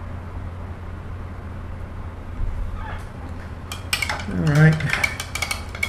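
Quick clinks and taps of painting tools being handled, starting about three seconds in, with a short low hum of a voice in the middle as the loudest moment. A steady low hum runs underneath.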